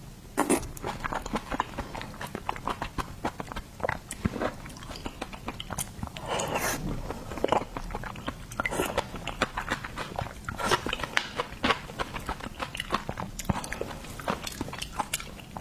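Close-miked eating of shellfish: steady chewing and biting with many small sharp clicks and wet mouth sounds, and a few louder bites scattered through.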